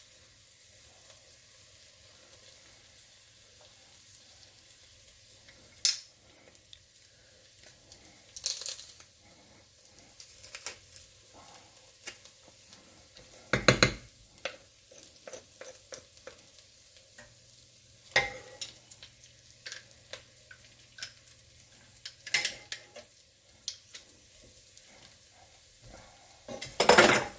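Onions and garlic sizzling quietly in oil in a stovetop crock, with a spoon scraping and knocking against the pot every few seconds as they are stirred, and a longer clatter near the end.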